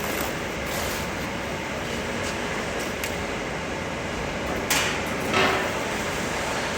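Steady background hum, then two short metallic scraping clunks in quick succession about two-thirds of the way in, the second louder with a brief ring: a steel storage cabinet's shelf or door being handled.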